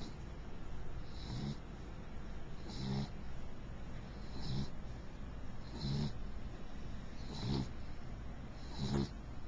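Mixed beagle snoring in her sleep: a short snore about every second and a half, six in all, steady and even.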